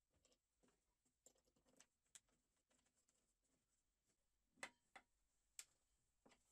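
Faint, scattered clicks and light knocks of a wooden part being handled and a wrench turning a bolt, the sharpest clicks coming in the second half.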